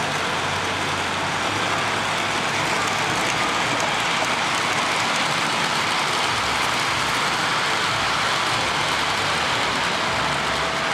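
Metal-wheeled O-gauge model freight cars rolling past on three-rail track: a steady rolling rumble and rattle.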